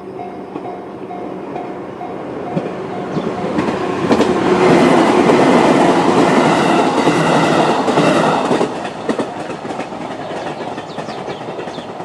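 JR East 211 series electric train passing over a level crossing: its sound builds, then clatters loudly over the rail for about four and a half seconds from about four seconds in, and fades away. In the first few seconds the crossing's JR standard-tone warning bell dings about twice a second, until the train's noise covers it.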